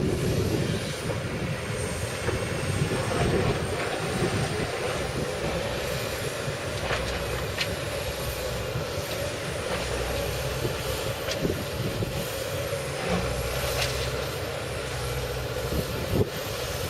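Excavator running steadily under load, with a thin high whine that rises and falls and a few scattered clanks and knocks as it works.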